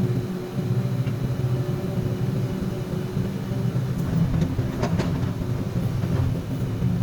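Komatsu PC200 hydraulic excavator's diesel engine running steadily, with a few light knocks about four to five seconds in.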